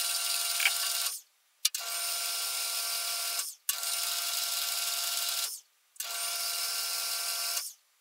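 Small Rivett lathe switched on and off in a run of short threading passes on a fine 0.6 mm pitch metric thread: four runs of about two seconds each. Each run starts with a click and a whine that quickly rises and then holds steady, and brief stops come between the runs.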